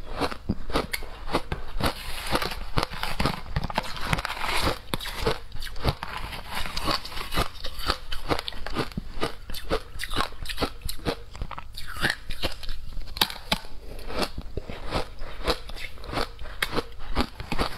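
Shaved ice with passion fruit being bitten and chewed, a dense run of irregular crunches.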